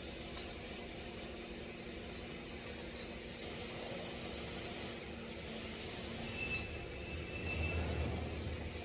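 TIG welding arc on stainless steel, a steady hiss that turns brighter in two stretches of about a second each, starting about three and a half and five and a half seconds in.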